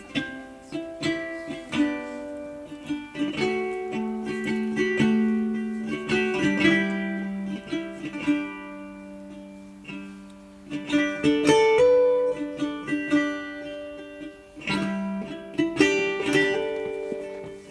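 Background music: a melody of plucked string notes played one after another.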